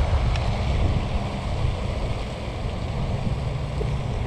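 Wind buffeting the microphone, a steady low rumble with a hiss above it.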